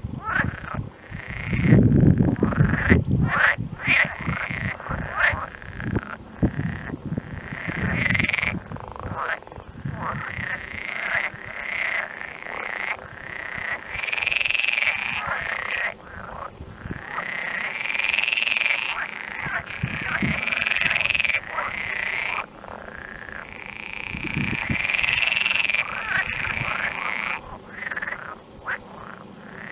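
A chorus of many frogs calling, with overlapping repeated croaking cries. A loud low rumble comes in about two seconds in.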